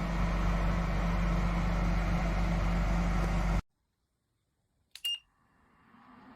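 Electric ceramic fan heater running with a steady fan rush and low electrical hum, which cuts off abruptly about three and a half seconds in. About a second and a half later there is a click and a short high control beep, and a faint fan sound then slowly builds up.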